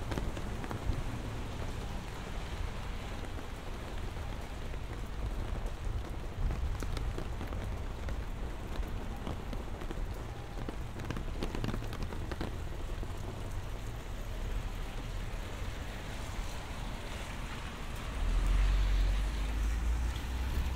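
Steady rain falling, with faint scattered drop ticks over a low rumble that gets louder near the end.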